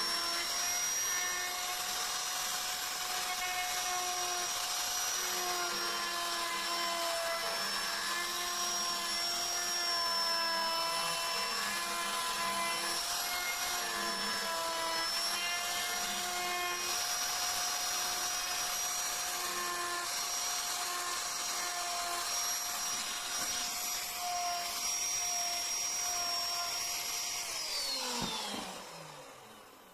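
High-speed rotary power carving tool running with a steady whine, its pitch wavering a little as it works the wood; about two seconds before the end it is switched off and winds down with a falling pitch.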